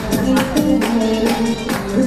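Music playing, with a steady, fast percussion beat over sustained tones.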